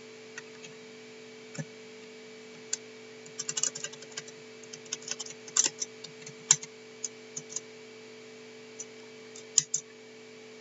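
Irregular clicks of a computer keyboard being typed on, some in quick runs, over a steady electrical hum.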